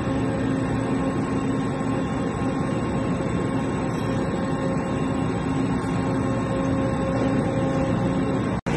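HNK HB-130 CNC horizontal boring mill running with a steady machine hum made of several fixed tones over a noisy bed. The sound cuts out abruptly for an instant near the end.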